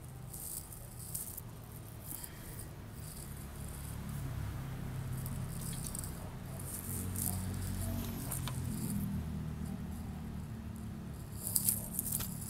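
Small metal hardware clinking and rattling in short, irregular bursts as a radiator guard and its bolts are handled, the loudest cluster near the end, over a steady low hum.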